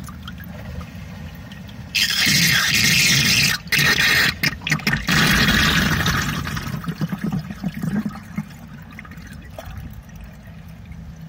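Water draining from a stainless steel sink waste through its trap and down a long pipe into a bucket. The sound starts quiet and rises about two seconds in to a loud rush of draining water, broken by a few short gaps. It fades after about seven seconds as the sink empties.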